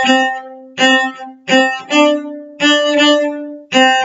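Cello bowed on the A string, playing a phrase of short, separately bowed notes on C natural that steps up to a higher D for two longer notes about two seconds in, then drops back to the lower note near the end.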